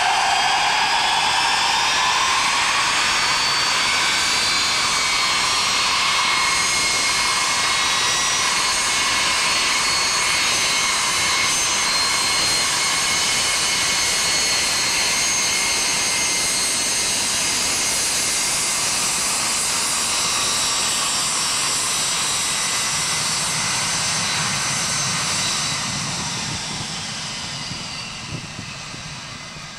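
Four jet engines of a Boeing 707 freighter spool up for takeoff, their whine rising in pitch in the first two seconds. They then hold a loud, steady roar with several high whining tones as the aircraft rolls past, and fade near the end as it moves away down the runway.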